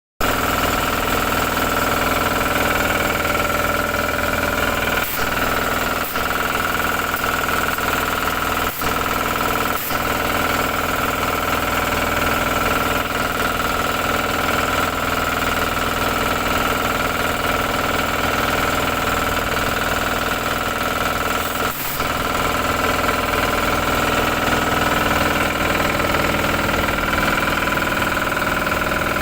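An engine running steadily at a constant speed, with a strong steady whine above its drone and a few brief momentary dips.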